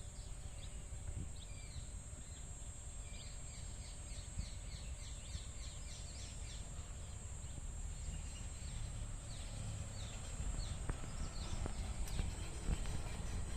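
Low steady rumble of the Kangra Valley narrow-gauge toy train running, with scattered sharp clicks that grow more frequent near the end. Over it come rapid bird chirps, thickest in the first half, and a steady high hiss.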